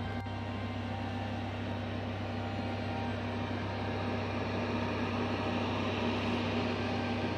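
Electric food dehydrator's fan motor running: a steady hum over an even rush of air, a little louder after about four seconds.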